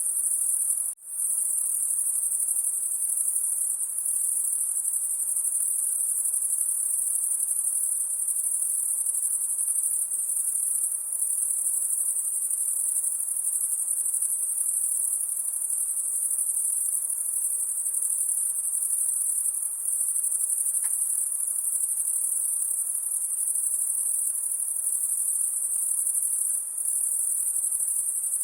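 Insects at night making a continuous, high-pitched shrill noise, steady and even throughout, which cuts out for a moment about a second in.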